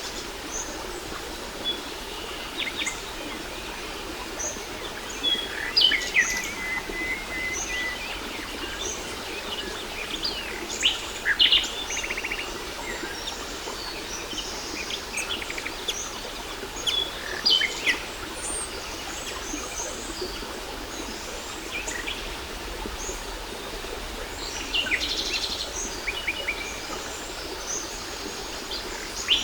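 Several songbirds chirping and trilling in short, scattered calls over a steady rush of falling water.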